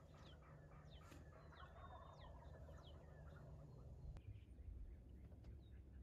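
Faint, distant wild turkey gobbling, with a run of high, short, falling bird chirps over the first three seconds; otherwise near silence with a low steady rumble of wind.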